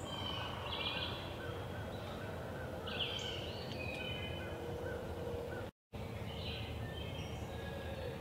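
Songbirds singing in a leafy woodland: short chirping phrases come and go over a steady low background rumble. The sound drops out for a moment about six seconds in.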